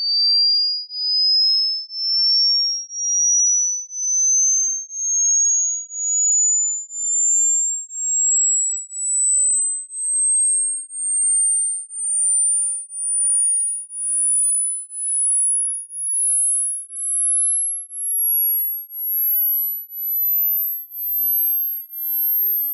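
Hearing-test tone: a string of pure sine-wave beeps, about one a second, each a step higher than the last, climbing from a high whistle to a very high, thin tone.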